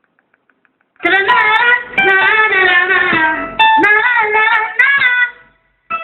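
A song with singing and guitar plays loudly through a mini hi-fi stereo system, starting about a second in after a few faint ticks.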